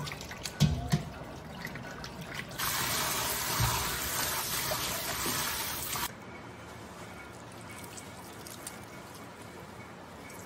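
Kitchen tap running into a stainless steel bowl in a steel sink while boiled surichwi leaves are rinsed by hand in it; the water runs for about three and a half seconds and cuts off suddenly. A couple of sharp knocks come just before it, about a second in.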